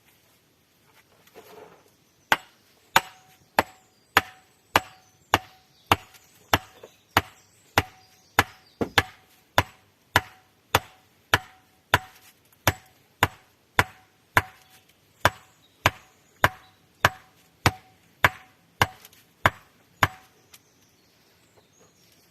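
A metal tool striking wood again and again: about thirty sharp blows in a steady rhythm of under two a second, each with a short metallic ring.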